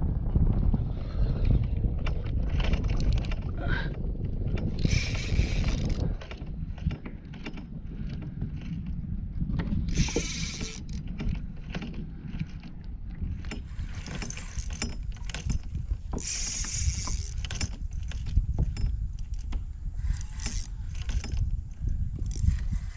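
Spinning or casting reel being cranked to bring in a hooked striped bass, its gears ticking steadily over a constant low rumble. Three short hissing bursts come about five, ten and sixteen seconds in.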